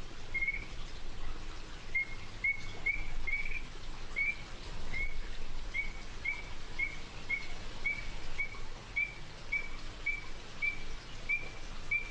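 Recorded call of an Illinois chorus frog: a steady series of short, clear, slightly rising whistled notes, about two a second, over a background hiss.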